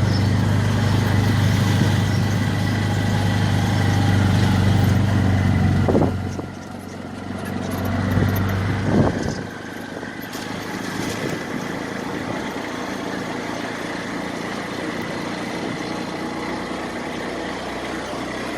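An engine idling with a steady low hum, which drops away about six seconds in. A brief louder swell around nine seconds follows, then steady outdoor ambience.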